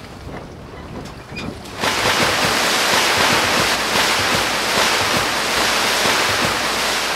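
Sea water rushing and surging, coming in suddenly about two seconds in and staying loud after a quieter start.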